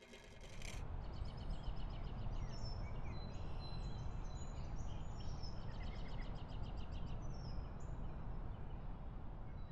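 Outdoor ambience: a steady low rumble with birds chirping and calling repeatedly high above it, fading in over the first second.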